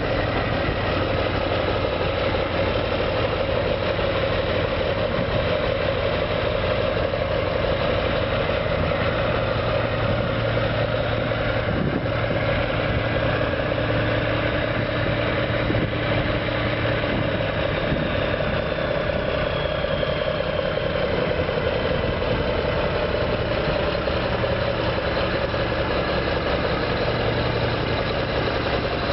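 Diesel engine of a 2000 Mack CH613 winch truck running steadily at low speed as the truck drives slowly away and turns back around.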